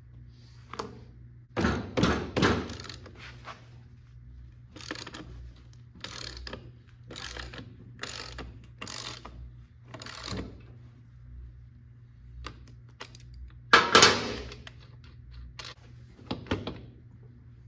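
A run of mechanical knocks and clicks, about one a second through the middle, with two louder clusters near the start and about two-thirds of the way in, over a steady low hum.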